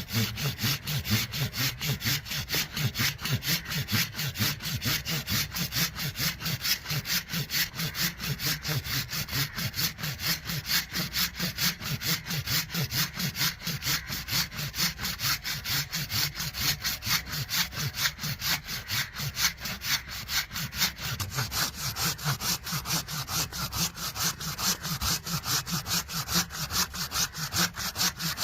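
Hand saw cutting through wood, in quick, even back-and-forth strokes, about three a second, that keep up without a break.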